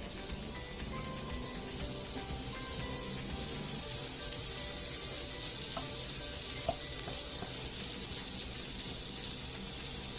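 Bell pepper, scallions, shallots and garlic sizzling in hot oil as they are stirred in the pan. The sizzle grows louder about three seconds in.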